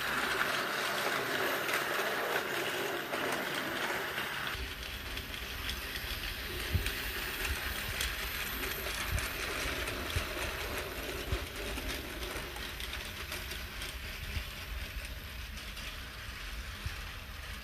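Tomy battery-powered plastic toy trains running on plastic track: the small motors and gears whirring and the wheels clattering along the track. About four and a half seconds in the sound changes to a quieter low rumble with occasional clicks as a locomotive passes.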